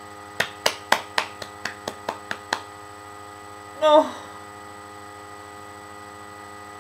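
Steady electrical mains hum in the recording, with a run of about ten quick light taps that fade away in the first few seconds, and a brief murmur from a woman about four seconds in.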